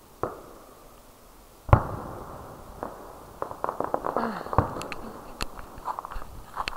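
Fireworks going off: a sharp bang just after the start, then a much louder boom about two seconds in that echoes. From the middle on come rapid, irregular crackling pops.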